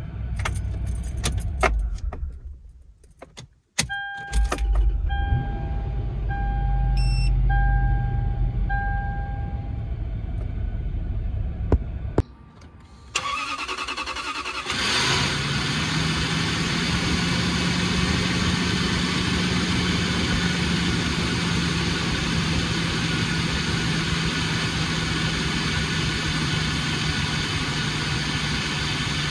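A vehicle warning chime beeps five times. A few seconds later the 4.7-litre 2UZ-FE V8 of a 2003 Toyota 4Runner is started on its freshly replaced starter. It catches and settles into a steady idle.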